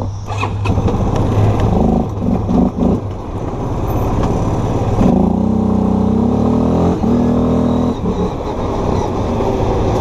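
Chinese ATV engine pulling away and being ridden, its pitch climbing about five seconds in, holding, then falling back near eight seconds.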